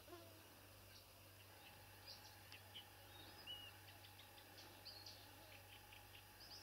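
Near silence: faint, scattered bird chirps and tweets over a low steady hum.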